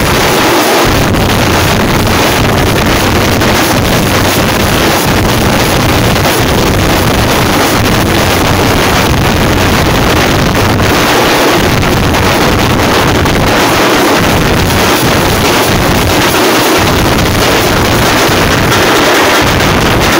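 A jamab troupe of frame drums beaten together in a fast, continuous ensemble. It is very loud and overloads the phone microphone into a dense, distorted wash.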